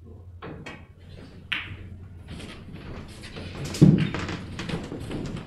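Snooker shot: a sharp knock of cue on ball about half a second in, a crisp ball-on-ball click about a second later, then lighter ticks of balls rolling and a heavier thud near four seconds.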